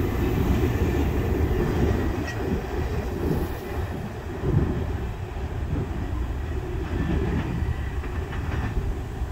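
Double-stack intermodal freight train's last well cars rolling away on the rails, a steady wheel rumble that slowly fades as the train recedes.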